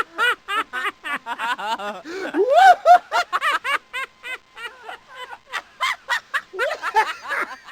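A person laughing hard in rapid, high-pitched bursts, several a second, with a few longer drawn-out peals in the middle.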